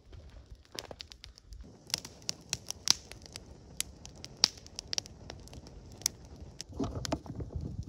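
A dog nosing and digging in crusty snow: a string of sharp, irregular crunching snaps, with a denser scuffling crunch near the end.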